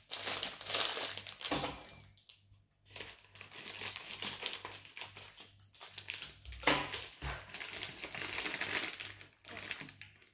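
Pink plastic wrapper of an L.O.L. Surprise doll crinkling as it is pulled and torn open to free the doll, in several spells with brief pauses.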